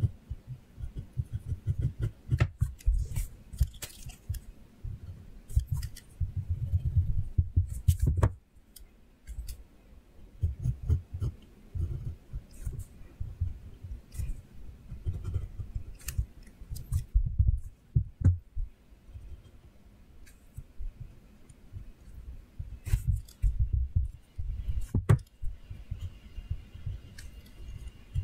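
Hand drawing on paper: quick, irregular strokes scratching across the sheet, with low bumps from the hand and paper against the desk and occasional sharp clicks.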